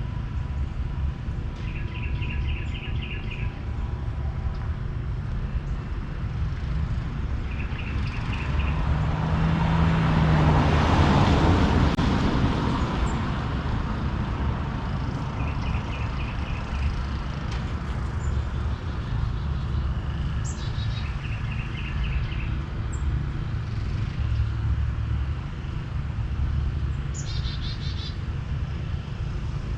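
Outdoor ambience with a steady low rumble and a small bird repeating a short trilled call every few seconds. About nine seconds in, a vehicle passes, its noise swelling to a peak and fading over about three seconds.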